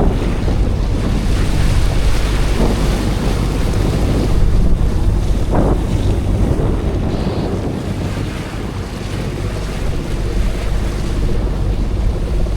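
Wind buffeting the microphone over the rush of sea water past the hull of a small sailing yacht running under one headsail.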